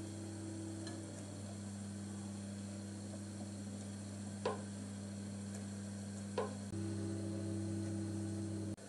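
Small electric motor driving a plastic gear, humming steadily, with two light ticks in the middle; the hum gets a little louder about two-thirds of the way through, then cuts off abruptly near the end.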